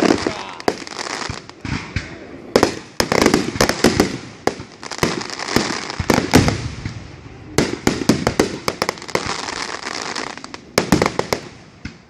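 Aerial fireworks shells bursting: many sharp bangs in quick clusters, with a dense rattle of smaller pops and hiss between them.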